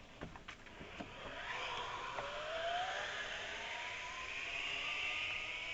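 Zipline trolley pulleys running along a steel cable: a whirring hiss that slowly rises in pitch as the rider picks up speed, after a few sharp metallic clicks at the start.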